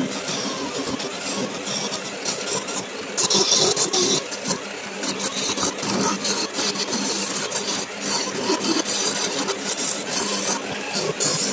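Parkside PDM 600 B2 mini wood lathe running under a steady hum while a hand-held turning tool cuts the spinning wood blank, giving a continuous scraping, rasping hiss. The cut grows louder and sharper about three seconds in and again near the end.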